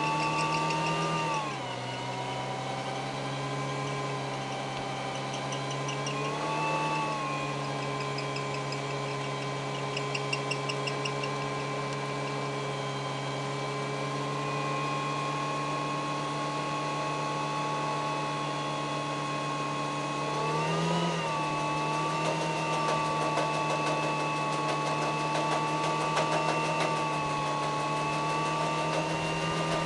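Datsun Stanza's engine held at steady revs in a stationary burnout, rear tyres spinning in clouds of smoke. The revs dip briefly twice in the first seven seconds and waver about two-thirds of the way through. After that a fast crackle runs under the engine as the rear tyres blow.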